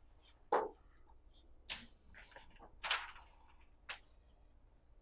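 Quiet room tone broken by four short, soft clicks about a second apart, the first the loudest.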